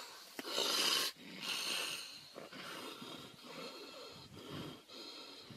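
Tigers hissing and snarling while fighting: two long breathy hisses in the first two seconds, then a string of shorter rasping snarls.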